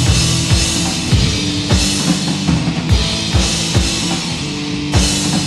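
Rock band playing between sung lines: drum kit with kick and snare hits, cymbal wash and a steady bass line, no vocals.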